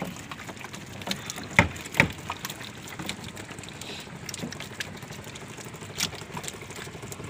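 Freshly caught fish flopping in the bottom of a boat: scattered small pattering taps and slaps on the hull floor, with two sharper knocks about one and a half and two seconds in and another near six seconds.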